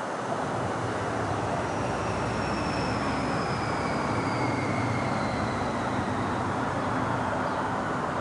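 Boeing 737's jet engines on approach to land, heard from the ground as a steady rushing drone. A high whine in it slides slowly down in pitch from about two seconds in.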